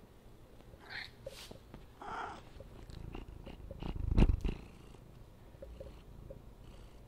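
A domestic cat purring close to the microphone, with brief rustles and knocks, loudest about four seconds in as its face presses right against the camera.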